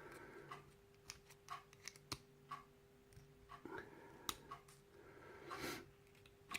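Faint, scattered small metal clicks and scrapes of a tool working at the cheap retaining clip on a euro lock cylinder, the clip turning round and round instead of coming off.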